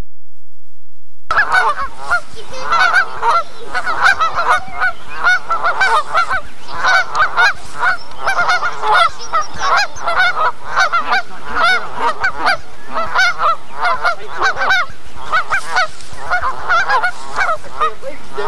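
Canada geese honking over and over, many short calls in quick succession from several birds; the honking starts about a second in.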